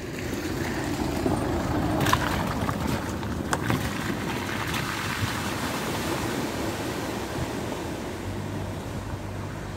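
Range Rover driving through a shallow river ford: a steady rush and splash of water thrown up by its tyres and body.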